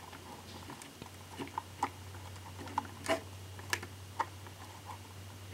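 Faint, irregular plastic clicks and ticks from a hand-cranked Lego hydraulic pump and its Lego Technic parts as the crank is turned to drive the arm, over a steady low hum.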